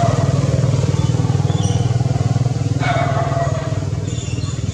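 Small engine running steadily with a fast, even pulse. A brief higher-pitched sound about three seconds in.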